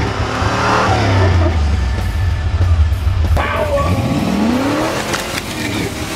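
Off-road 4x4's engine revving hard as it accelerates, its pitch rising as it picks up speed. A few sharp cracks near the end as its tyres run over and smash plastic 3D-printed wine glasses.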